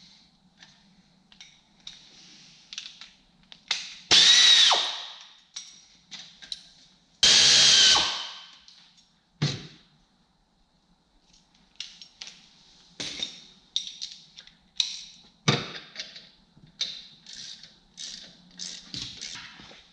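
A cordless power tool runs in two loud bursts of about a second each, about four and seven seconds in, its motor whine dropping as each burst stops. Around them come many lighter clicks and knocks of hand tools and metal parts being handled.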